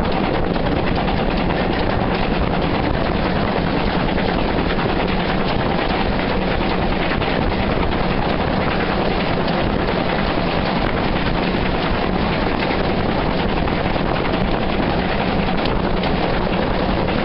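Steam-hauled train running, heard from an open carriage window: a loud, steady rush of wind on the microphone mixed with the running noise of the train and its locomotive working ahead.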